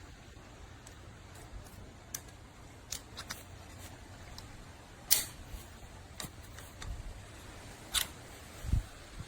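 Scattered sharp clicks over a faint steady low hum, the loudest about five seconds in and another near eight seconds, followed by a dull thump near the end.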